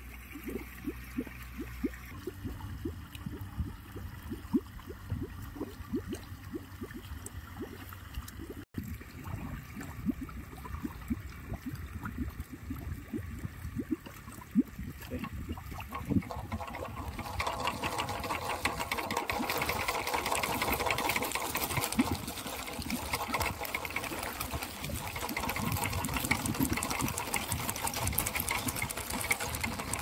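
Plastic-bottle windmill, a homemade rat and bird scarer, spinning on a bent metal rod and rattling with rapid, uneven clicks and knocks. The clatter grows louder and denser about halfway through.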